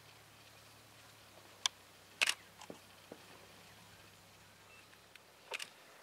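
Camera shutter clicks: one sharp click about one and a half seconds in, a quick cluster just after two seconds, a few softer ticks, and a double click near the end.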